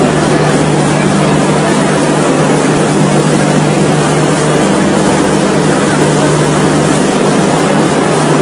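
Water jetting from a burst railway water pipe, a steady loud rush and spray, with a low steady hum beneath it.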